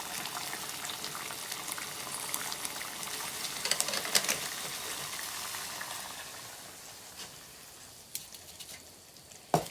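Tomato sauce sizzling and bubbling in a pan over a fire, with a few light clicks about four seconds in; the sizzle dies away over the last few seconds.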